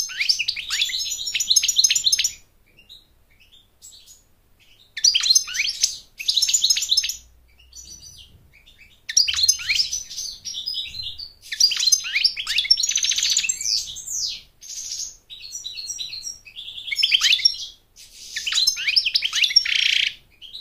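European goldfinch singing: about six bursts of rapid, high twittering notes, each a second or two long, with short pauses between them.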